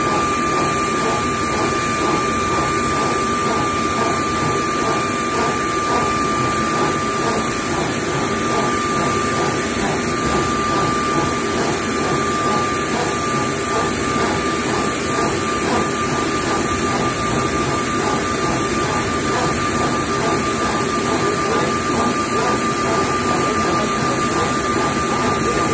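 Steady turbine running noise from a powered-up Airbus A320 on the ground: a constant drone with a high, steady whine over it.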